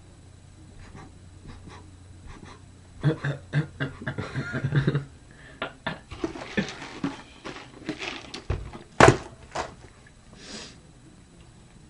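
Two young men laughing under their breath: breathy, choppy snickers and giggles that start about three seconds in, with one sharp knock near the end.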